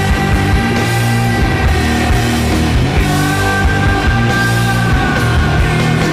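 Loud rock music soundtrack with a steady beat and long held high notes.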